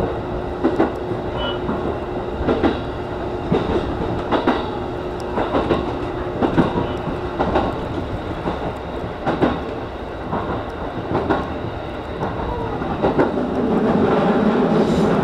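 E233 series electric train running along the track, heard from the cab, its wheels clacking over rail joints, often in quick pairs, every second or so. Near the end the running noise grows louder and fuller as the train enters a tunnel.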